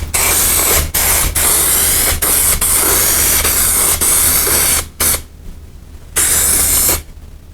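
Aerosol spray adhesive hissing from the can in a long run of bursts with brief breaks, then a short burst and a last burst near the end, as glue is sprayed to stick down seat padding.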